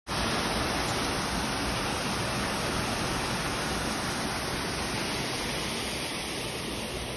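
Steady rushing of water spilling over a small concrete weir in an irrigation canal, easing slightly near the end.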